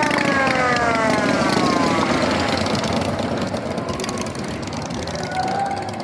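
A siren winding down, its pitch falling steadily and fading out about two and a half seconds in, over a low steady rumble.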